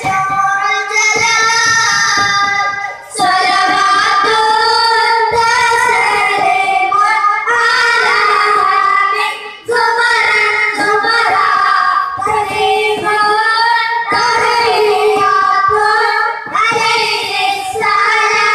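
A group of boys singing an Islamic devotional song into microphones, amplified through a PA, in long sung phrases with short breaks about three and ten seconds in.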